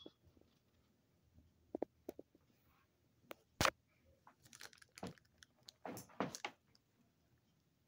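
Faint handling noises: scattered light clicks and rustles, with one sharper click about three and a half seconds in and brief bursts of rustling around five and six seconds in.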